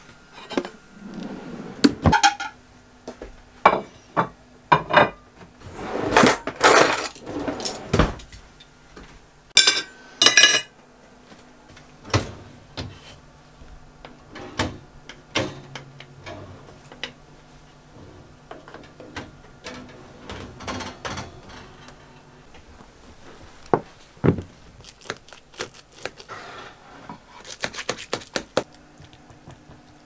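Kitchen clatter: dishes, a baking tray and cutlery knocking and clinking in scattered bursts, busiest in the first ten seconds. Near the end comes a quick run of clinks as food is served from the baking tray with a spatula.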